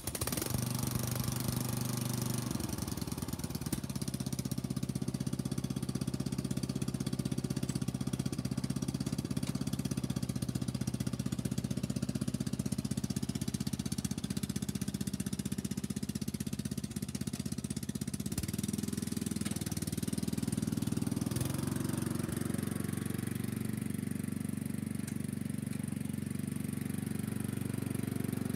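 Craftsman riding mower's small engine running steadily while the mower is driven. It runs on a freshly fitted replacement carburetor and intake, the old intake having been cracked. Its pitch shifts a little twice after the middle.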